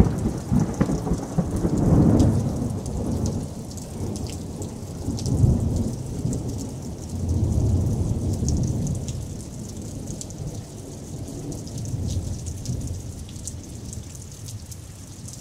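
Thunderstorm: rain falling with thunder. A sharp crack comes right at the start, then low rolling rumbles swell and fade several times over a steady patter of raindrops.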